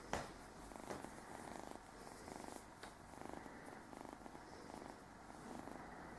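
A red Burmese kitten purring, a faint, rapid, pulsing purr that comes in stretches as it is stroked and played with. There is a soft click just after the start and another a little under three seconds in.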